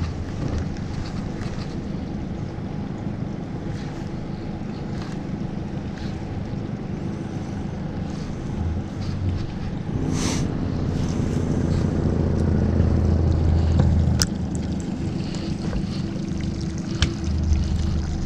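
A boat motor running steadily, with wind on the microphone. A brief hiss comes about ten seconds in and a sharp click about four seconds later.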